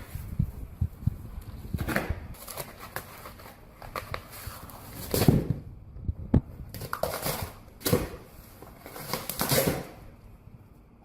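Irregular knocks and thumps mixed with rustling, crunching noises, the loudest about five seconds in.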